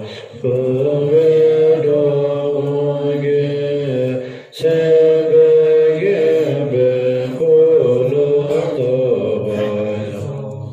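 Group of voices chanting Buddhist prayers in unison from a prayer text, in long held lines. There are short breath pauses about half a second in and again around four and a half seconds.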